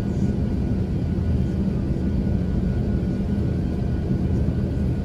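Steady low rumble in the cabin of an Airbus A350-900 taxiing, with its Rolls-Royce Trent XWB engines running and a faint steady whine above the rumble.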